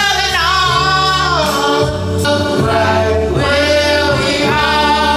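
Music: a gospel-style song with singing that holds and glides between notes over a steady bass.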